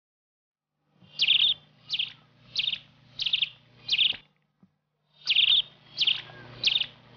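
A bird calling again and again: short, buzzy, high chirps, about three every two seconds. They start about a second in, with a brief pause midway.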